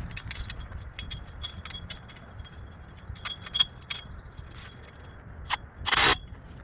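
Small metal parts clinking and rattling as sheet metal screws and hardware are handled, in scattered sharp ticks, with a brief loud rush of noise about six seconds in.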